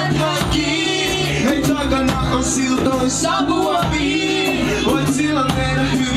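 Live band playing a reggae song: vocals sung into a microphone over strummed acoustic guitar, a steady bass line and an even percussion beat.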